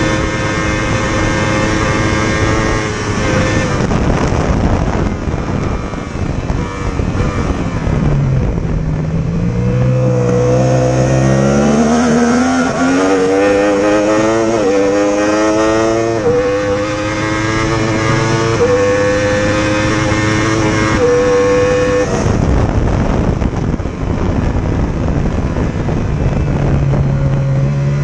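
Racing motorcycle engine heard from onboard, held at high revs in top gear, then shut off about three seconds in, leaving wind rush. From about ten seconds in it pulls hard up through the gears, the pitch climbing and dropping back at each of several upshifts. Near the end it backs off again into wind noise before starting to climb once more.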